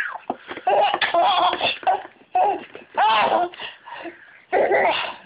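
Young children laughing in repeated bursts about a second apart, each one a pitched, bouncing giggle.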